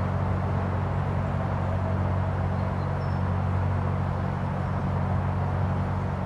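Narrowboat's diesel engine running steadily at cruising speed, a low even drone with a steady rushing noise over it.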